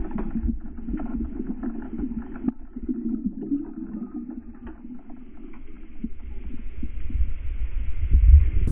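Muffled underwater sound picked up by a camera submerged in its waterproof housing: a low rumble of moving water with scattered clicks and knocks, growing louder over the last few seconds.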